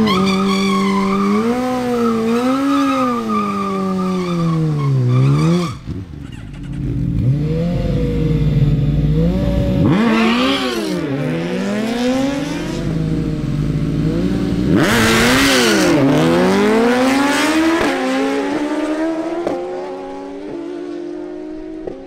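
Suzuki Hayabusa and GSX-R1000 drag bikes' inline-four engines revving up and down in repeated blips at the start line, with hissing bursts of tyre spin, the loudest about fifteen seconds in. Near the end both engines hold a climbing note, stepping up through the gears as the bikes accelerate away down the strip.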